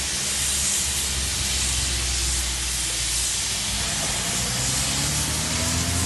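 Steady hiss of heavy rain with a low rumble underneath. From about halfway in, a heavy truck's engine approaches, its pitch rising.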